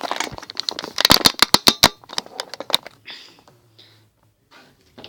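Homemade slime being squeezed and pressed, giving a rapid run of sharp clicks and pops that stops about three seconds in, followed by a few softer sticky sounds.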